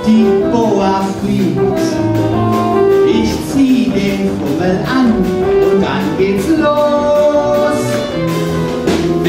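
Live band of saxophone, keyboard, double bass and drum kit playing a jazzy show tune with a steady beat.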